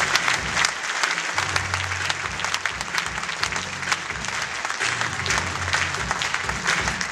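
Audience applauding, with many dense, irregular claps, over show music with a low bass line.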